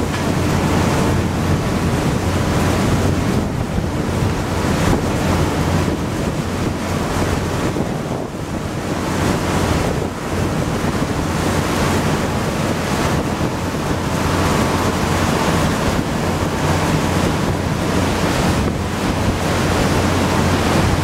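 Motorboat under way at speed: water rushing and churning past the hull, with a steady low engine drone underneath and wind buffeting the microphone.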